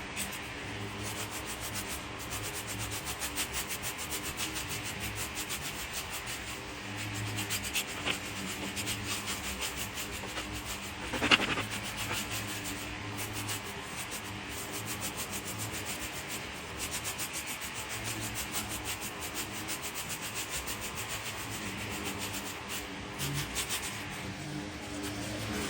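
Leaf rake scraping over ground and dry leaves in quick, repeated strokes, with the leaves rustling; one stroke about eleven seconds in is much louder and sharper than the rest.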